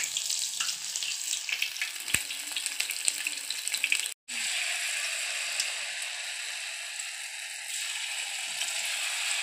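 Batter-coated mushroom pieces deep-frying in hot oil in a steel kadai: a steady sizzling hiss full of crackling pops. The sound cuts out for a moment about four seconds in, then returns as a smoother, steadier sizzle.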